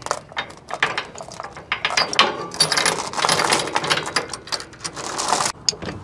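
Steel tie-down chain rattling and clinking as it is handled and hooked up, links knocking against each other in quick irregular clatters.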